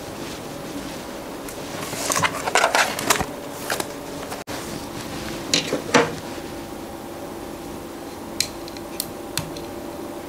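Hands handling small plastic objects on a wooden desk. There is a cluster of rustles and clicks about two to three seconds in, two sharp taps around six seconds, and a few light ticks near the end, over a faint steady hum.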